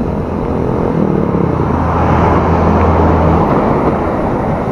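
A motor vehicle passes close by: its low engine hum and tyre noise swell over a couple of seconds and fade, with the engine tone dropping out about three and a half seconds in. Underneath is a steady rush of wind and road noise.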